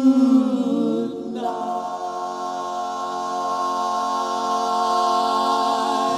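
Male doo-wop vocal group singing a cappella. The voices slide down together in the first second, then come in on a new chord that is held steadily.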